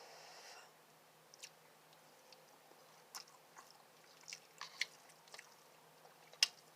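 Person eating hot and spicy instant ramen noodles close to the microphone: faint, irregular chewing and mouth smacks, with a sharper click near the end.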